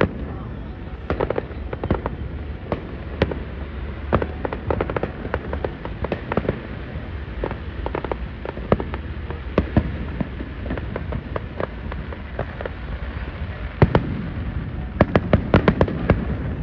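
Aerial fireworks shells bursting: a steady run of bangs and crackles, with a quick cluster of loud bangs near the end.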